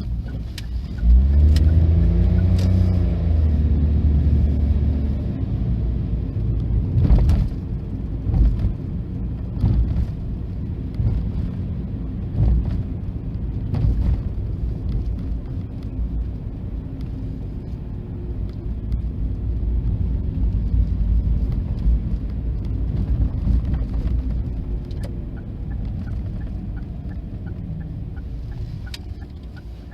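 Diesel railcar passing through a level crossing. Its engine note rises and falls in pitch over the first few seconds, then the wheels knock over the rail joints several times under a steady low rumble. A faint, evenly repeating ding of the crossing's warning bell is heard near the start and near the end.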